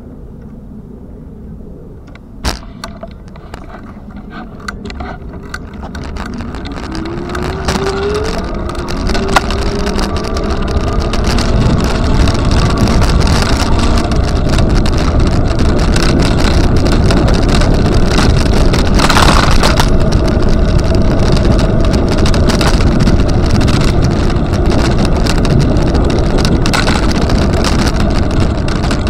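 Rushing ride noise that swells over several seconds as the ride picks up speed, then holds steady and loud. A click comes about two seconds in, and a short rising whine follows a few seconds later.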